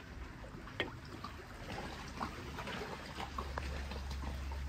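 Small sea waves lapping and trickling against the stone shore, a faint scatter of little splashes and clicks over a low rumble.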